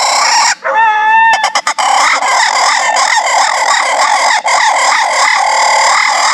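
A dense chorus of night insects and frogs. About half a second in comes one short, high pitched call, followed by a few sharp clicks.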